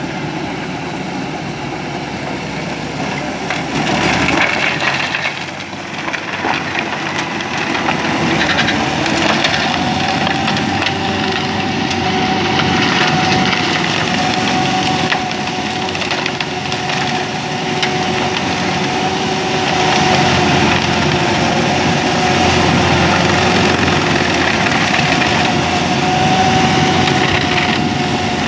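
Antonio Carraro tractor's diesel engine running under load while its PTO-driven Brăilași flail mulcher shreds tall grass and weeds: a steady mechanical din that gets louder about four seconds in, with a thin steady whine joining about ten seconds in.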